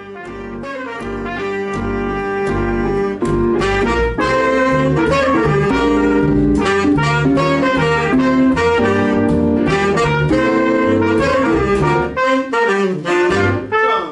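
Jazz band playing a tune with a bass line under a melody. The level builds over the first few seconds, and the playing breaks into short, choppy phrases near the end.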